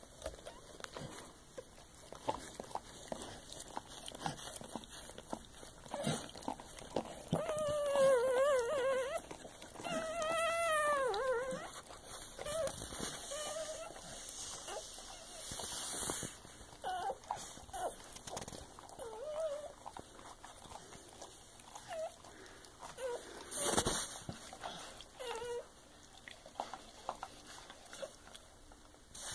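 Dog whimpering in a whelping box during a birth: two long, wavering high cries about a quarter of the way in, then short squeaks every few seconds. A sharp knock sounds a little before the end.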